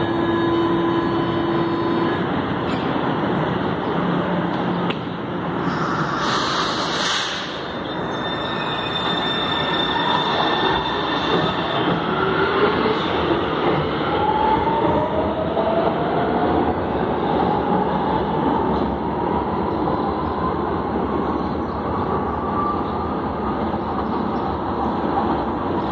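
Metro train departing a station: a short steady tone near the start, a loud hiss about six seconds in, then the train's motors whining in rising pitch over the rumble of wheels on rail as it accelerates away along the platform.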